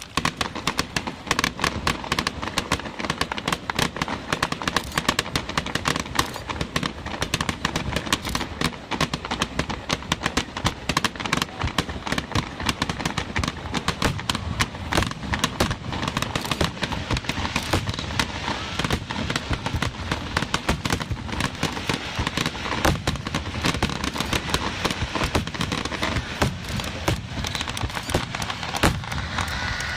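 Fireworks bursting in rapid succession: a dense, continuous crackle of sharp reports, many each second, that starts suddenly.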